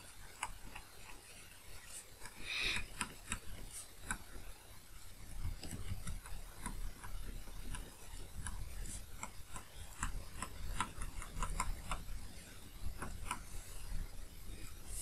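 Stylus tapping and scratching on a tablet screen while handwriting: a string of light, irregular clicks.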